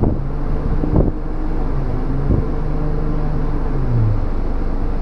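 Electric vehicle winch motor running in a short burst to tighten the line: a steady hum that drops in pitch and stops about four seconds in, heard from inside the cab over the vehicle's running engine. Two short knocks sound during the pull.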